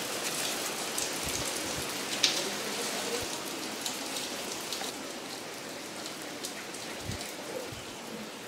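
Steady rain falling, with scattered drips ticking, and a few soft low knocks.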